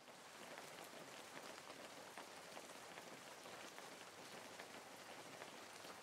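Faint, steady patter of water with light crackles.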